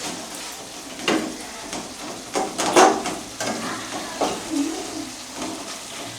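Chicken curry sizzling as it cooks in a pot, stirred with a spoon that scrapes and knocks against the pot several times. The loudest stroke is about three seconds in.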